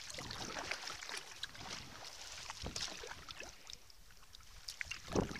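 Sea kayak paddle dipping into calm sea water with soft splashes and drips, alongside light water noise against the hull.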